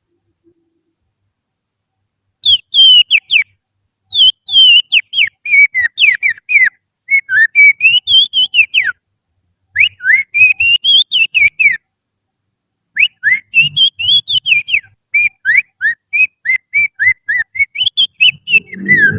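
A person whistling through the little finger in imitation of oriental magpie-robin song: after a silent start, quick phrases of sharp whistled notes that slide down and up, broken by short pauses. A low rustling noise comes in near the end.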